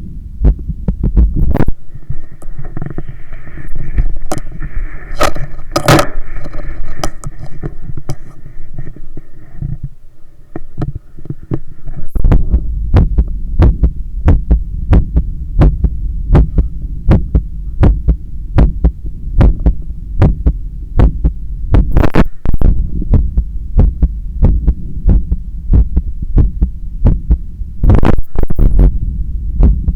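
Heartbeat heard through a stethoscope pressed to the chest: a steady, even run of deep beats. For the first several seconds a rubbing hiss from the stethoscope moving on the skin lies over the beats, and a couple of sharp scrapes come later.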